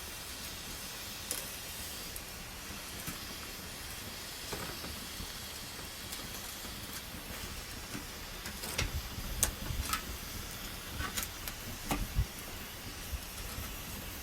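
Wood campfire burning: a steady hiss with scattered sharp crackles and pops, more of them in the second half.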